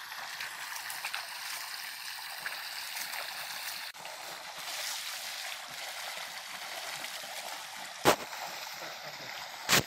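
Water gushing from a pipe into a concrete water tank, a steady rushing splash. Two sharp knocks stand out near the end, about a second and a half apart.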